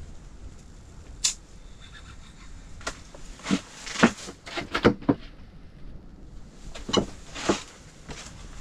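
A string of irregular sharp clicks and knocks over a faint steady background, several close together around the middle and two more near the end.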